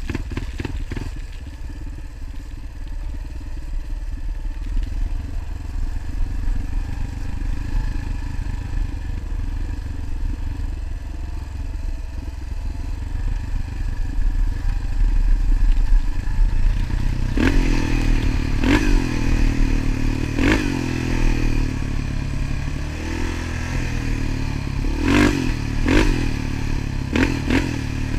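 Motorcycle engine running under way over a steady low rumble. From a little past halfway the engine note rises and drops again and again, every second or two, with short sharp knocks among the swoops.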